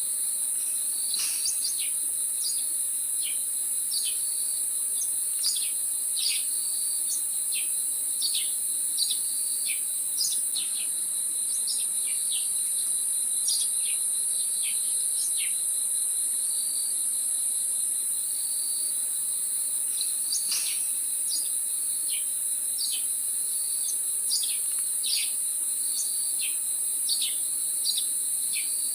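Steady high-pitched insect chorus, with short, sharp bird chirps that sweep downward scattered over it throughout.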